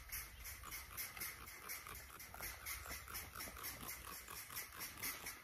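Hand trigger spray bottle spritzing a fine mist onto a galvanized corrugated roofing sheet. It gives rapid, evenly spaced short hisses, a few a second.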